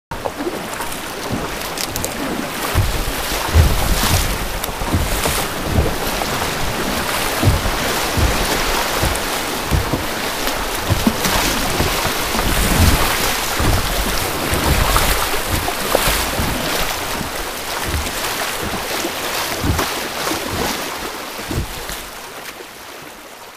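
Rushing, churning floodwater and splashing around a kayak, with wind buffeting the microphone in irregular low thumps. It fades out near the end.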